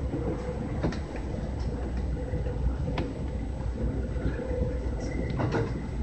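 JR West 323 series electric train running at speed, heard from inside the cab: a steady low rumble of wheels on rail with a steady hum over it, and sharp clacks from the wheels on the track about a second in, at three seconds, and a few together near the end.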